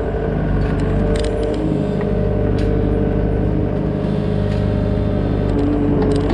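Excavator engine running steadily, with a few short clicks and knocks from the machine working.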